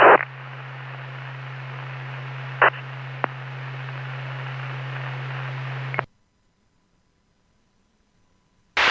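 Police scanner receiving an open radio channel with no voice: steady static hiss over a low hum, with a few short clicks. It cuts off abruptly to silence about six seconds in, and the static comes back just before the end as the next transmission keys up.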